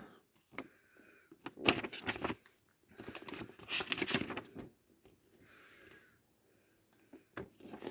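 Packaging being handled and opened by hand: scattered clicks and rustling in short bursts for the first few seconds, then a brief faint hiss.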